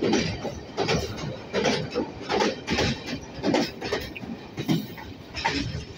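Train wheels clattering over rail joints, a clack roughly every three-quarters of a second over a steady running rumble, heard from aboard the moving train.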